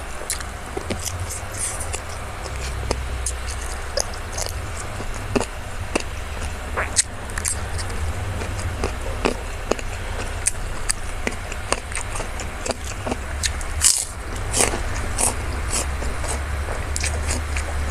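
A person eating: chewing with many short, crisp crunches and mouth clicks scattered throughout, over a steady low hum.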